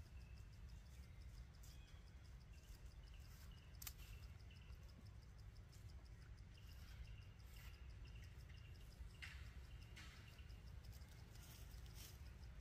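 Faint forest background: a rapid, even pulsing of insects, faint bird calls and a low rumble, with a few sharp clicks.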